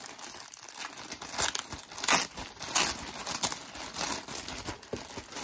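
Thin clear plastic poly bag crinkling in irregular bursts of crackle as hands pull it open to take out a folded t-shirt.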